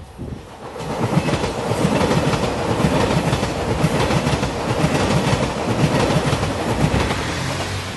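JR 2700 series diesel limited express train passing at speed, its wheels clicking rapidly over the rail joints with a heavy rumble. It comes up loud about a second in and begins to fade near the end.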